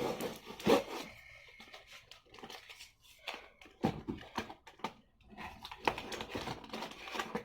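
Packaging in an opened cardboard box being rustled and torn by hand: irregular crinkling and tearing with a few sharper rustles, the loudest under a second in.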